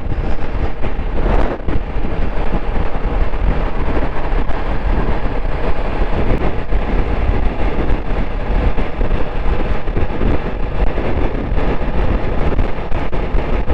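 TVS Apache RR310 motorcycle riding at speed, its engine and road noise under a steady, heavy wind rumble on the microphone.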